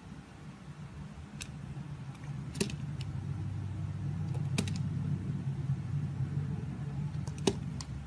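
A utility knife blade shaving a bar of soap, with scattered crisp crackles and snaps as curls and chunks break away, over a steady low hum.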